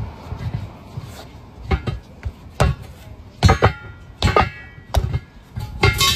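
Steel truck wheel rim clanking as it is worked loose from a large truck tire: a series of sharp metallic knocks, several in quick pairs, and near the end a louder clang that rings on.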